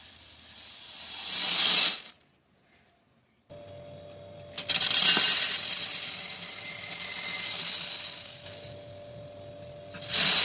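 Small beads being poured, a dense rattling hail of tiny hard impacts. A first pour swells and cuts off about two seconds in. After a short silence a second pour starts loud and fades away, with a faint steady hum underneath, and another pour swells up at the very end.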